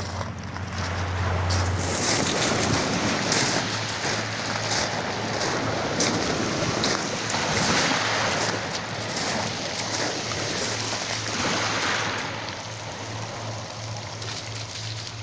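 Waves washing in and drawing back over a pebble beach at high tide, in surges every few seconds, with a steady low hum underneath.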